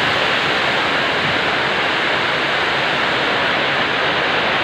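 Heavy rain pouring down steadily, a loud even hiss.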